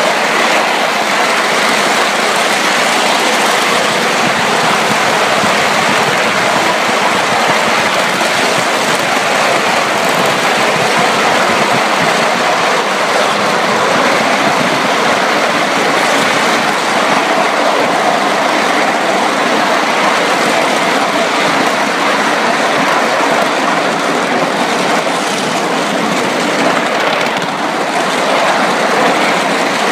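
A live-steam miniature Atlantic-type coal-fired steam locomotive and its riding car running along a ride-on track, heard from just behind the engine. The noise of wheels on rail and the running engine is loud and steady, with no break.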